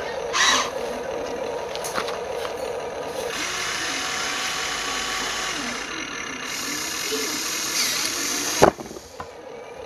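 Huina 1593 RC excavator's small electric motors and gears whirring and grinding as the boom and arm move. A single sharp knock comes near the end, after which the motor noise drops away.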